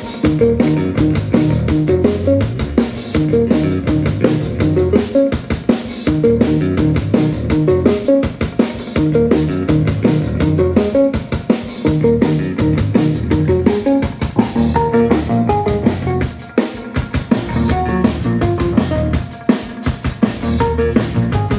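A live band playing loudly: a drum kit beating a fast, steady rhythm under electric guitar, bass notes and keyboards.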